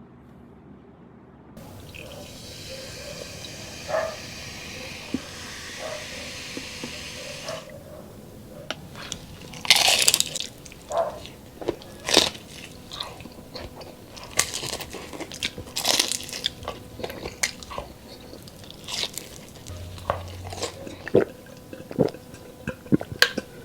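Close-up crunching bites and chewing of crispy deep-fried chicharon bulaklak (pork mesentery), with loud irregular crunches, after a steady hiss in the first few seconds.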